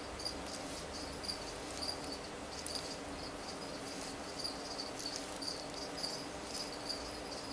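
Cricket chirping: short high chirps repeated about three times a second, over a steady low hum, with a few faint clicks.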